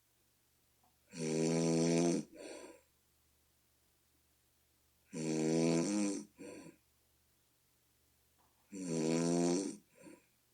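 A person snoring, bullfrog-like: three loud, pitched snores about every three and a half seconds, each lasting about a second and followed at once by a shorter, softer sound, with quiet between.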